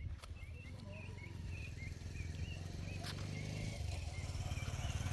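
Rural outdoor ambience: many short high chirps repeating every fraction of a second over a low rumble that grows louder, with a couple of sharp clicks.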